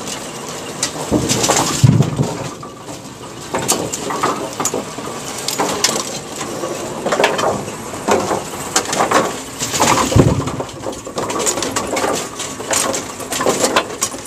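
Brunswick bowling pinsetter cycling, with bowling pins clattering and knocking as they drop into and ride around its older-style pinwheel, over the running machinery. There is no deep gonging from the pinwheel: this wheel is fairly quiet.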